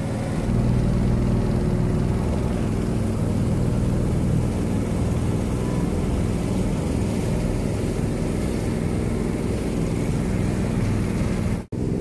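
Small wooden river boat's engine running steadily under way, a low drone with water and wind noise over it. The audio cuts out for an instant near the end.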